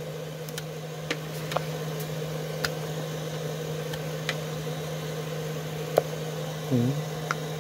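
Steady hum of a running machine, with a few light clicks as a small blade cuts rubber heel caps from a rubber sheet.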